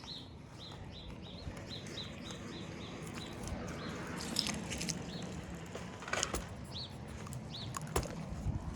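A small bird chirping: a quick run of short high chirps, about four a second, for the first two and a half seconds, then two more chirps later. A few sharp knocks come around six and eight seconds in.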